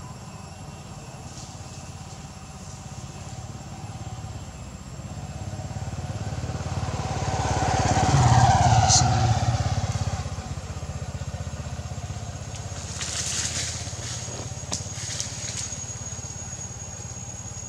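A motor vehicle passing by: its engine grows louder to a peak about halfway through, then fades away.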